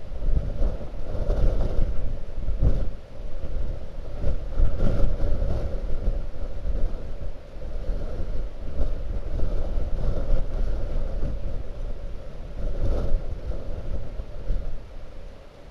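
Blizzard wind gusting hard against the microphone: a loud, uneven low rumble that swells and eases with each gust, with a faint howl riding on top.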